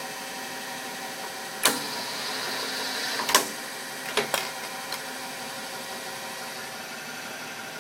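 Dixie Canner can seamer running with a steady mechanical hum, broken by sharp metallic clanks about two seconds in, again near three and a half seconds, and a quick few around four to five seconds, as it seams a test can.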